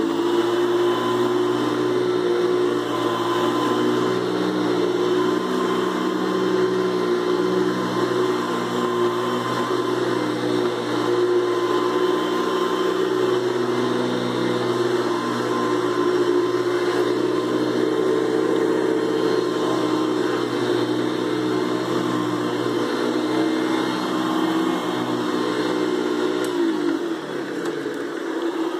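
Hoover Convertible upright vacuum cleaner running steadily with its motor and brush roll spinning. Near the end it is switched off and its whine winds down, falling in pitch.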